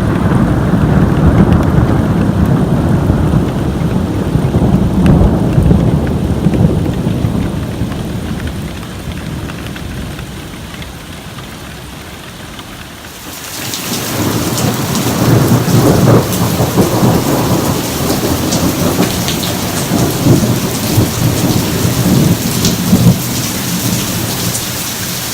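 A long roll of thunder that fades away over about ten seconds. Then a heavy downpour starts suddenly, with more rolling thunder beneath the rain.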